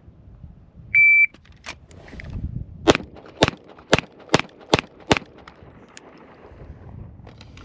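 A shot-timer start beep, then a string of six rapid pistol shots from a Springfield Armory Prodigy, about half a second apart: a bill drill. A fainter sharp click sounds shortly after the beep, before the first shot.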